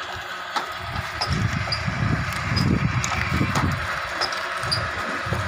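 Dona paper-bowl making machine running under its 1 HP electric motor, the press dies stamping out bowls with repeated low pulses about every half second to second, over a steady mechanical hum with occasional sharp clicks.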